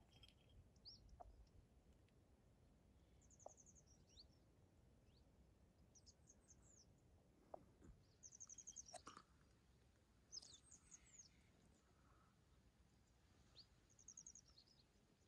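Near silence with faint small-bird calls: about five short, high trills of rapid notes, a few seconds apart.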